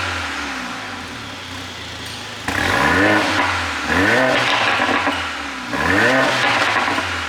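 Mercedes-AMG A45's turbocharged 2.0-litre four-cylinder, ECU-tuned for exhaust pops, revved in three quick blips. The revs sink slowly for the first couple of seconds, then jump sharply about two and a half seconds in, again about a second later, and once more near the end, dropping back after each rise.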